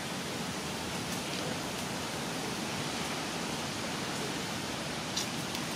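Steady, even hiss of outdoor background noise, with a couple of faint clicks about five seconds in.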